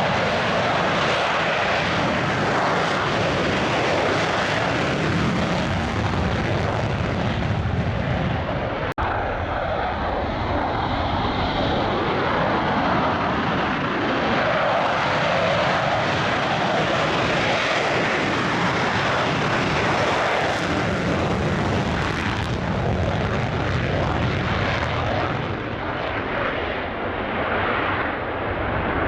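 Military jet aircraft engines running, a loud steady rushing noise, with one sharp click about nine seconds in.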